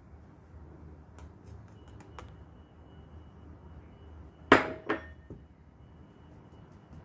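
Stainless steel kitchenware clanking while flour is sifted over a steel mixing bowl: a few light ticks, then two loud ringing clanks about half a second apart past the middle.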